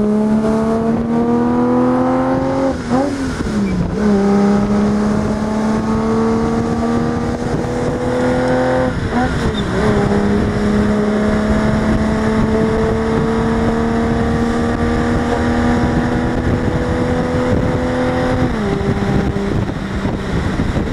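1960 Ferrari 250 Cabriolet Pininfarina's V12 engine pulling under acceleration. Its pitch climbs, then drops at two upshifts about 3 and 9 seconds in. It holds a steady note for several seconds, and the revs step down once more near the end.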